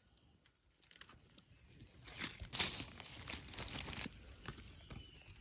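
Dry fallen leaves rustling and crackling as a hand pushes through the leaf litter on the forest floor. The crackles come unevenly, faint at first and busiest about halfway through.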